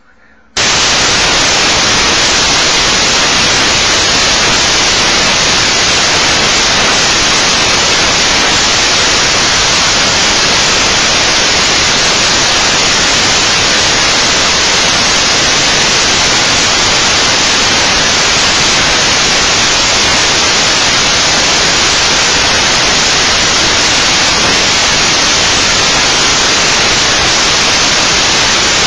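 Loud, steady static hiss like white noise, switching on abruptly about half a second in and holding at one level without change.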